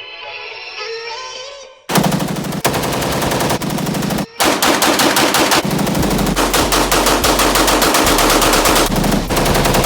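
Soft music for about two seconds, then a sudden loud run of rapid automatic gunfire, many shots a second with a brief break about two seconds later, over a steady deep bass tone.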